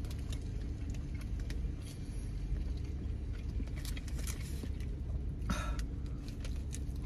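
Steady low rumble inside a parked car's cabin, with light scattered crinkles of a paper burrito wrapper being handled and a louder rustle about five and a half seconds in.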